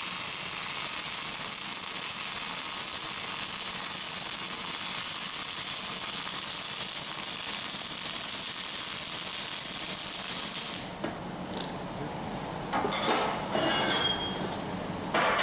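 MIG (wire-feed) welding arc running a dragged second pass into a full-penetration butt joint on steel angle bar: a steady hiss for about eleven seconds that stops abruptly. A few short knocks follow near the end.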